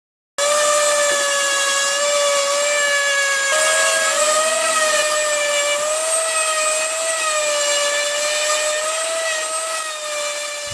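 Random orbital sander running steadily on a wooden centerboard, smoothing away CNC tool marks. It makes a high, steady whine over a hiss, and the pitch wavers slightly as the pressure on the board changes.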